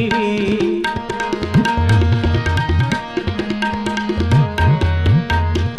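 Instrumental interlude in shabad kirtan: tabla playing a steady rhythm, the bass drum's strokes bending up in pitch, under sustained harmonium notes.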